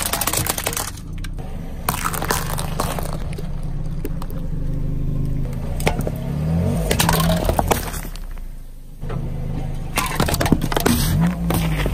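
A car tyre rolling slowly over small objects and crushing them: repeated sharp cracks and crunches, then aluminium soda cans crumpling under the wheel, over the low hum of the car's engine.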